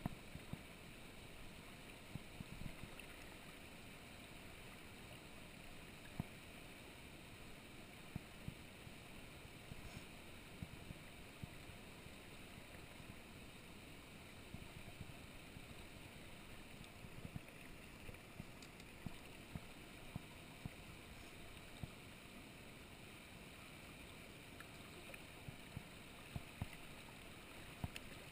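Steady rush of a shallow, rocky river flowing around the wader, with scattered short knocks and thumps throughout.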